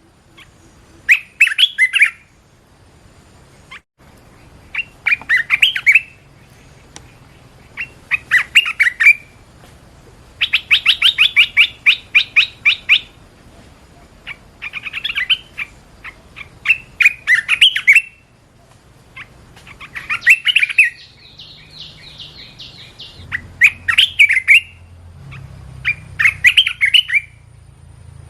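Red-whiskered bulbul singing: short, lilting whistled phrases about a second long, repeated every two to three seconds, with a longer rapid run of notes partway through.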